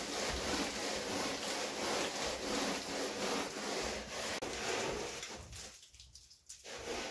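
Hand float rubbing over fresh cement-lime plaster on a wall, a rough scraping in repeated strokes, which stops for under a second near the end and then resumes.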